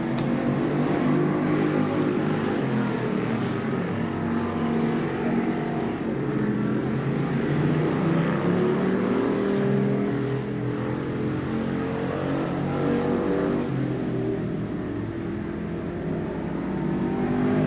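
Dirt-track stock car engines running hard around the oval, several cars at once, their pitch rising and falling as they go through the turns and along the straights.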